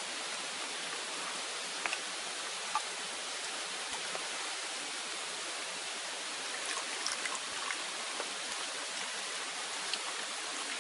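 Steady hiss of rain falling, with a few faint scattered ticks.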